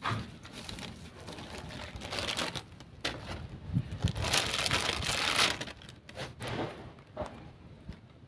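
Crinkling and rustling with scattered clicks and knocks, loudest and longest between about four and five and a half seconds in.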